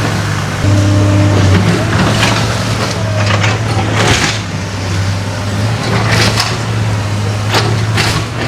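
Diesel engine of a heavy demolition machine running steadily while a house is torn down, with debris crunching and cracking several times over it.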